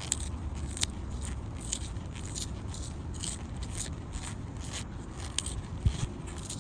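Carpenter's pencil being sharpened: a series of short scraping strokes, about one a second, as a blade shaves wood and lead off the flat pencil. A low thump about six seconds in.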